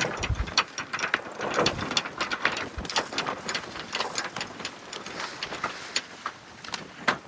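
Sailboat deck gear clicking rapidly and irregularly, like a sheet winch's ratchet being cranked as the boat comes through a tack, with a couple of low thumps near the start.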